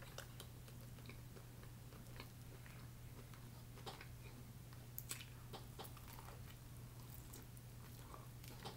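Faint biting and chewing of boiled corn on the cob, with scattered soft mouth clicks, over a steady low hum.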